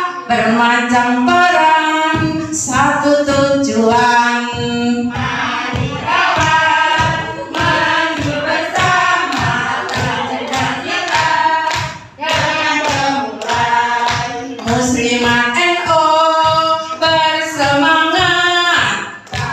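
A group of women singing a kindergarten yel-yel chant-song together, led by one voice on a microphone, over a steady beat of low thumps.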